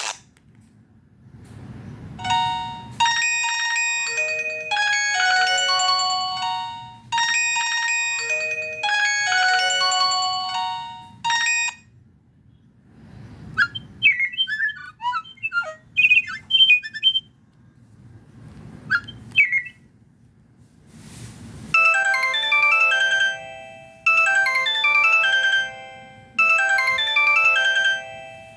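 Avio A302 mobile phone playing its built-in polyphonic ringtones in turn through its speaker. First comes a synthesized melody whose phrase repeats, then a tune of quick sliding chirps, and near the end a fast arpeggio figure that repeats about every two seconds. Short pauses separate the tunes.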